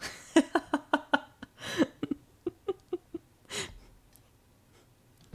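A woman laughing: two runs of short, quick pulses, each ending in a sharp in-breath. The laughter stops about three and a half seconds in.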